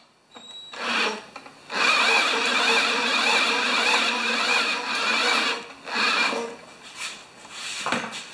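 Cordless drill spinning a Tecumseh lawn mower engine over by its flywheel nut in a steady run of about four seconds, with short blips of the drill about a second in and again near the end. The engine does not catch, and the drill's battery may be too weak to crank it fast enough.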